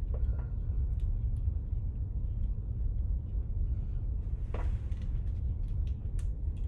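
Steady low background rumble with a few small clicks and a short rustle about four and a half seconds in, as the webcam is handled.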